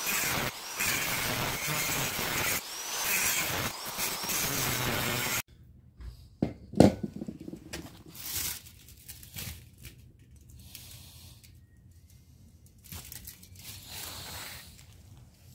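Angle grinder cutting into a scrap radiator, a steady grinding whine that stops suddenly about five seconds in. Then quiet handling of the cut radiator on concrete, with one sharp knock and a few faint clinks.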